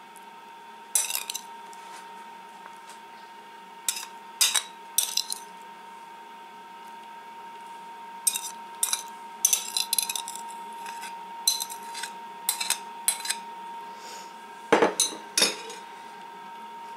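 Metal spoon clinking and scraping against a glass bowl and a plate as a potato filling is spooned out onto a tortilla: irregular short clinks with pauses between, the loudest pair near the end. A faint steady high hum runs underneath.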